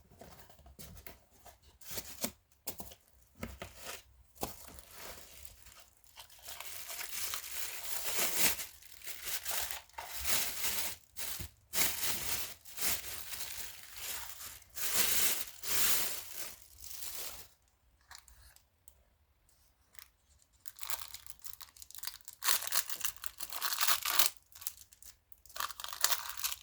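Packaging being torn open and crinkled by hand while unwrapping parts of an engine cylinder kit: irregular rips and rustles, with a quiet pause of a couple of seconds past the middle.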